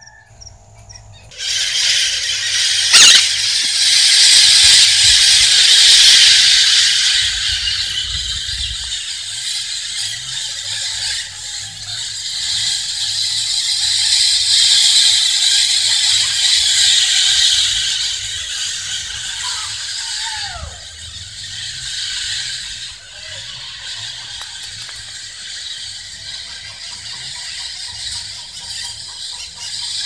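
A large flock of scaly-headed parrots (maritacas) in flight, screeching together in a dense, harsh chorus that starts suddenly about a second and a half in. It is loudest in the first few seconds and again around the middle, and thins toward the end. A single sharp knock sounds about three seconds in.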